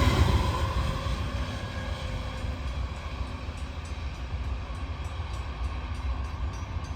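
Passenger train rolling past the crossing and pulling away. A steady low rumble of wheels on rail slowly fades as it recedes.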